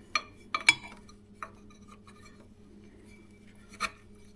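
A few light clicks and taps as a battery tender cord is worked through a hole in an ATV's plastic bodywork. The loudest two come close together under a second in, and one more comes near the end.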